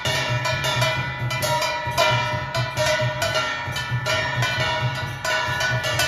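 Music with a steady percussive beat and sustained ringing tones over it.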